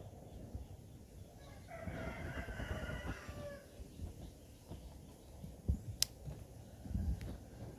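A rooster crowing once, a call of about two seconds that falls in pitch at the end. Low knocks throughout, and a sharp click about six seconds in.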